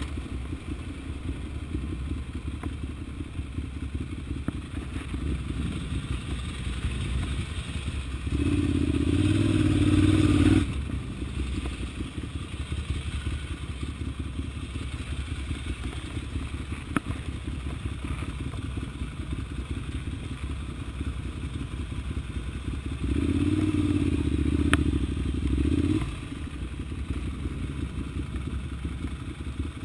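Ducati Monster 795's air-cooled V-twin engine running at low revs with a fast, even pulse while the bike rides. It grows louder and rises in pitch twice as the throttle opens, for about two seconds from around eight seconds in and for about three seconds from around twenty-three seconds in.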